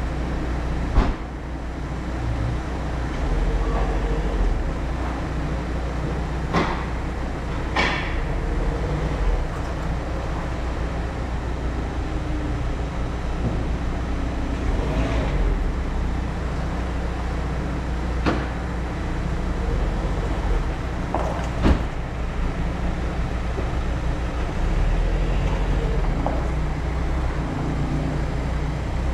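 A steady low mechanical rumble, with several sharp knocks or clicks scattered through it.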